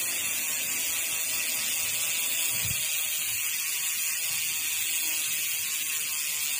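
Mountain bike rear hub freewheeling, its pawls ratcheting into a steady, even buzz.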